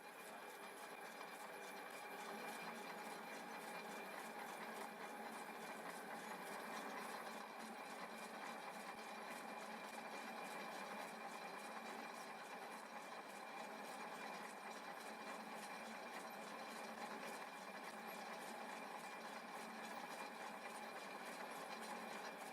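Manual centre lathe running steadily, set to a slow spindle speed for external threading; its motor and gearing make an even hum with a few held tones.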